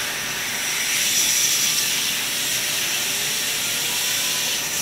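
Handheld 33,000 RPM Opolar electric air duster running flat out: a steady rushing hiss of air with a thin high whine from its motor, blowing dust out of a graphics card's cooling fans.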